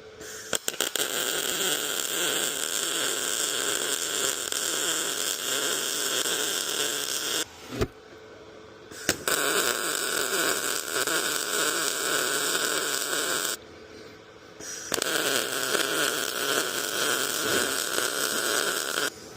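Electric arc welding: three long runs of a steady crackling weld bead, the first starting with a few sputtering strikes, separated by short pauses of about a second and a half.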